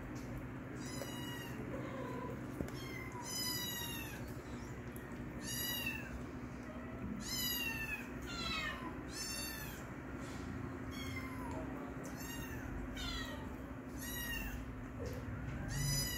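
Kitten mewing repeatedly: about ten short, high-pitched mews, roughly one every second or two.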